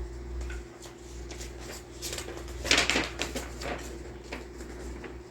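Paper instruction sheets rustling and crinkling as they are handled, with scattered light taps and one louder rustle about three seconds in.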